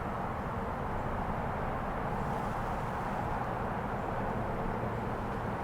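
Steady low outdoor background rumble, even throughout with no distinct events.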